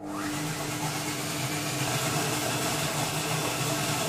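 SilverCrest Monsieur Cuisine Connect food processor running at speed 6, its blades mixing choux pastry dough. It is a loud, steady motor whir with a low hum, and it starts abruptly.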